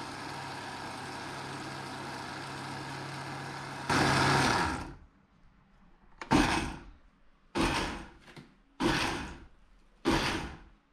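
Kitchen blender motor running steadily with a low hum, surging louder about four seconds in and then stopping. It then gives about five short bursts roughly a second apart, each cutting in suddenly and fading, as it pulses to crush ice that has not yet broken up.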